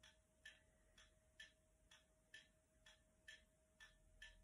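Faint, evenly spaced ticking, about two ticks a second, like a clock, over a faint steady hum.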